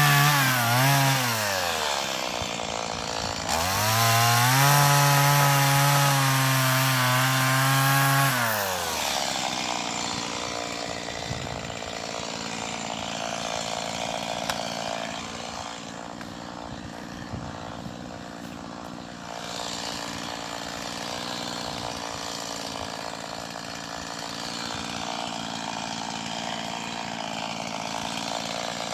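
Husqvarna 390XP two-stroke chainsaw on an Alaskan mill, running at high revs. The revs drop about a second in, climb back up and hold steady for about five seconds, then fall away about nine seconds in. After that there is a quieter, steady running sound.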